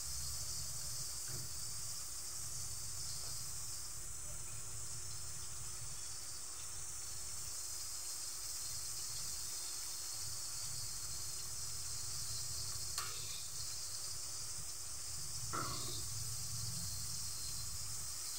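Breaded pork pieces frying in oil, a steady sizzle throughout, with two light knocks in the second half.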